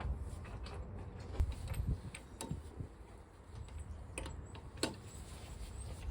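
Scattered light clicks and knocks, about a dozen at uneven intervals, over a low steady rumble.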